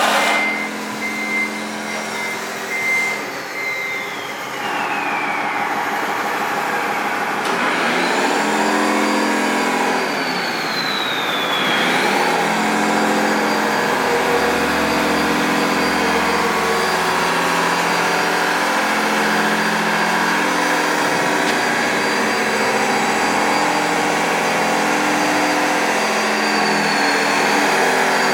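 An RC model Komatsu wheel loader's sound module playing a diesel engine running. Over it comes a high electric motor whine from the RC models that falls in pitch several times.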